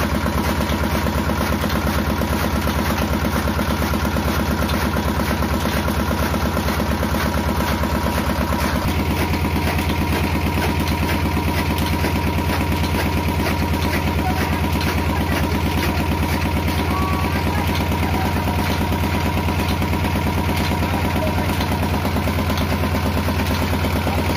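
Small four-stroke engine running steadily, driving a chaff cutter while green fodder is fed into it; its note changes slightly about nine seconds in.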